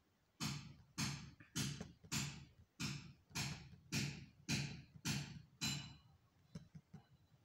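Laptop pointer button clicked about ten times at an even pace, a little under two clicks a second, stopping about six seconds in, with a few fainter ticks after. These are repeated clicks with the paint-bucket fill tool.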